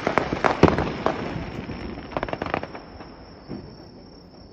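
Aerial firework shells bursting in a rapid run of sharp bangs, a second cluster about two seconds in, then thinning out and fading.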